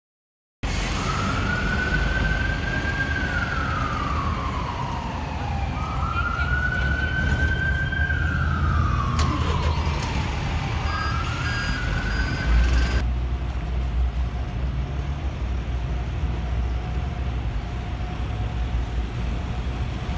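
Emergency-vehicle siren in a slow wail, rising and falling three times over the low rumble of city traffic, then cutting off suddenly about thirteen seconds in. After that, only the steady low rumble of road traffic.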